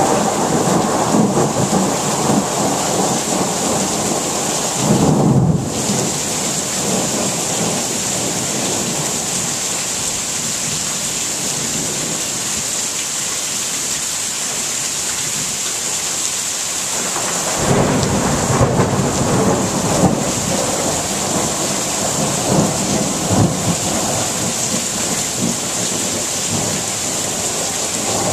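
Steady rain falling during a thunderstorm, with thunder rumbling twice: a long roll through the first several seconds that swells about five seconds in, and another from a little past halfway that fades out a few seconds later.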